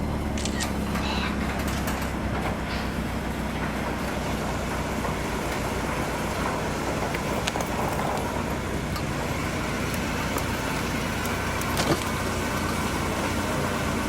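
Car engine running steadily, with a few brief clicks and knocks.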